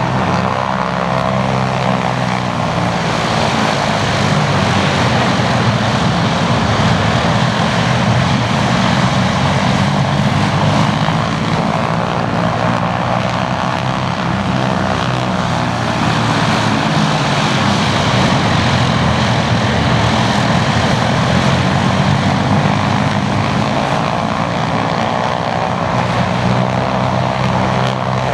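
Piston-engined propeller warbirds, the Blenheim with the Hurricane and Mustang, flying past in formation: a steady engine drone whose tone sweeps as the aircraft pass by.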